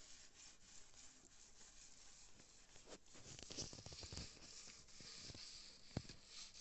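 Faint rubbing and scratching of a sponge scrubbing ketchup over a chrome-plated metal chair base to lift the rust, a little louder midway, with one sharp tap near the end.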